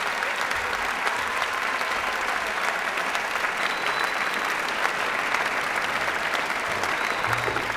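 Audience applauding, a dense, steady clapping. A few low music notes come in near the end.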